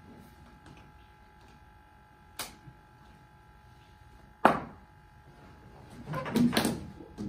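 Ball knocks in an indoor game of cricket on a tiled floor: a light knock about two and a half seconds in, a sharp loud crack a couple of seconds later, then a cluster of knocks and thuds near the end as the ball is bowled again.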